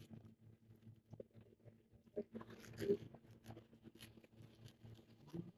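Faint crunching and scraping as a fillet knife cuts into a whole tuna's skin and flesh on a cleaning table, with one louder scrape about three seconds in.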